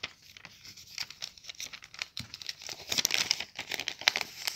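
Sheet of lined notebook paper being folded and creased by hand: irregular rustling and crinkling, busiest in the last second and a half.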